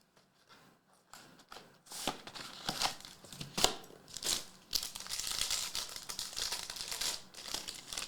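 Trading-card packaging being opened: plastic wrapper crinkling and tearing in quick, irregular bursts, starting about two seconds in after a few faint clicks.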